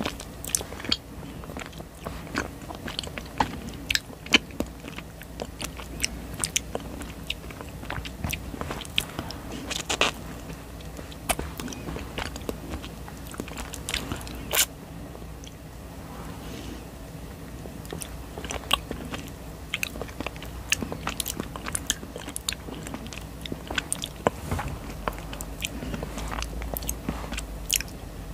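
Close-miked mouth sounds of eating a sticky honey jelly: irregular wet clicks and smacks as it is licked, sucked and bitten, with a short lull about halfway through.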